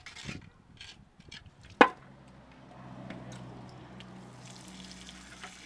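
Sand being brushed and scraped by hand off a freshly cast aluminium clutch cover in its sand mould: small scattered scrapes and clicks, then one sharp knock a little under two seconds in. After the knock a faint steady low hum carries on.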